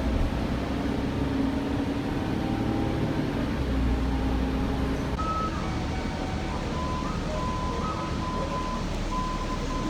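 Ride inside a transit bus: steady engine and road rumble, with a low drone for the first five seconds or so and faint thin tones in the second half.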